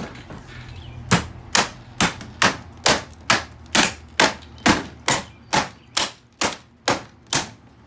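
A claw hammer repeatedly striking the plastic ball housing of a Dyson Ball vacuum cleaner: about fifteen sharp, even blows, a little over two a second, starting about a second in.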